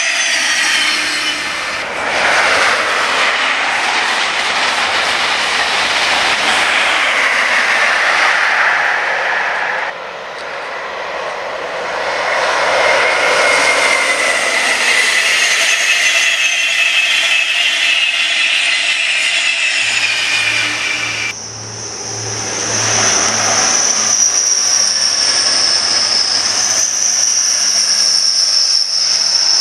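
High-speed trains passing at speed on electrified main line: the rush of wheels on rail and air from InterCity 225 sets (Class 91 locomotive and Mk4 coaches), in several cut-together passes. From about two-thirds of the way in, a Grand Central Class 180 diesel unit passes with a low engine drone and a high steady whine.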